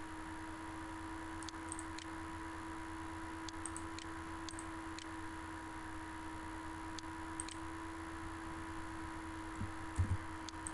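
Steady electrical hum and hiss of the recording, with scattered sharp clicks of a computer mouse being used, and a low thump near the end.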